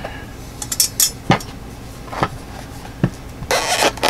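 A small metal cigarette tin clicking and knocking against the inside of a stainless steel camp pot as it is lifted out, several separate sharp clinks, then a short scraping rustle near the end.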